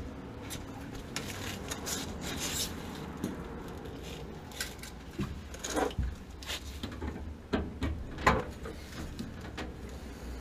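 Copper pipe and fittings being handled and fitted by hand: scattered light metallic clicks, knocks and scraping, with a couple of sharper knocks about six and eight seconds in.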